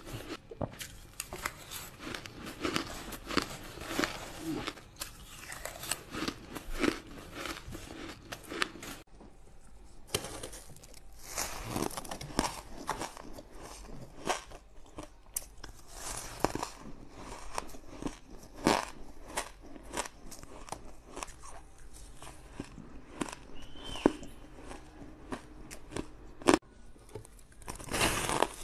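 Frosty ice being bitten and chewed close to the microphone: a quick, irregular run of crisp crunches and crackles.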